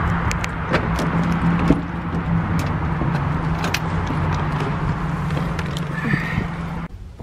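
Steady hum of a running vehicle engine, with scattered clicks and rustles of footsteps and a handbag being handled while someone gets into a car. The hum cuts off abruptly near the end.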